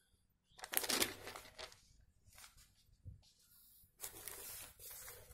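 Newspaper pages rustling and crinkling as they are handled and turned, in two main bursts: about a second in and again after about four seconds.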